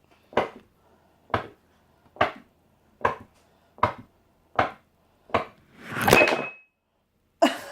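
Wooden MOKURU fidget roller flipped end over end on a tabletop, knocking down with each flip: seven sharp knocks about one a second, coming slightly faster, then a longer, louder clatter about six seconds in as the run ends.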